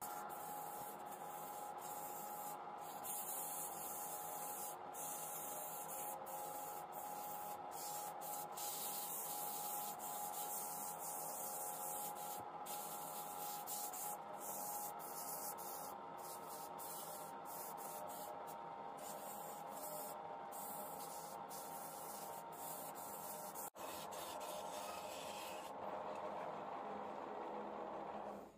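Sandpaper held by hand against a wooden vase spinning on a wood lathe: a steady rubbing hiss over the lathe's even running hum.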